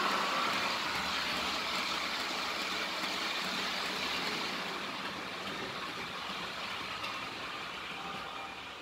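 H0 scale model RENFE Talgo coaches rolling along the track, a steady wheel-on-rail rolling noise that slowly fades as the train moves away.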